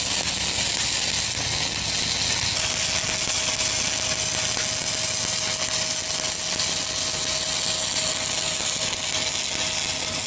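Stick-welding (SMAW) arc on a 1/8-inch 7018 electrode at about 115 amps, running steadily as a cap stringer bead is laid on small-diameter Schedule 160 steel pipe. A faint steady tone joins about two and a half seconds in.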